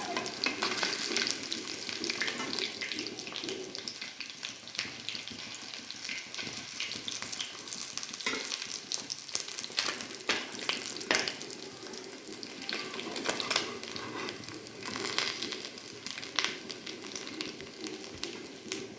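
Rohu fish pieces sizzling and crackling in hot oil in a metal kadhai, fried on both sides. A metal spatula clicks and scrapes against the pan as the pieces are turned and lifted out.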